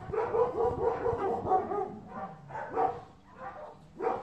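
A dog barking: a quick run of short barks, about four a second, then a few single barks spaced out near the end.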